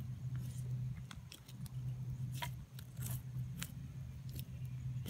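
A knife cutting and scraping into the skin and scales of a largemouth bass behind its head: irregular short crackling clicks and scrapes. A steady low hum runs underneath.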